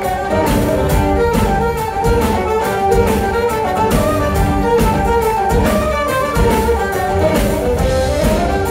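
Scottish traditional-folk band playing a tune live at full strength: fiddles and flutes carry the melody over drum kit, bass and guitar, with regular drum hits.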